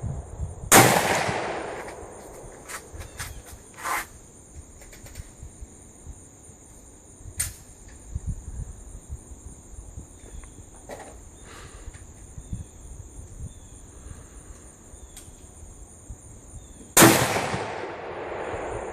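Two loud rifle shots from a Mossberg MVP Varmint bolt-action rifle in .308 Winchester/7.62 NATO, about sixteen seconds apart. Each shot has a long echoing tail. Fainter clicks and knocks come between the shots, over a steady high drone of insects.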